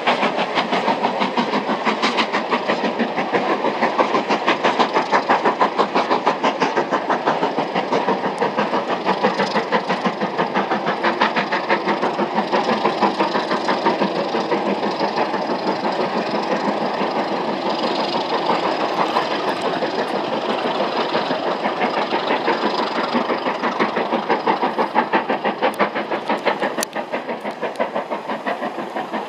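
LMS Black 5 two-cylinder 4-6-0 steam locomotive working hard on a climb: a fast, steady, unbroken beat of exhaust chuffs with rail noise from the train. It eases a little near the end as the train draws away.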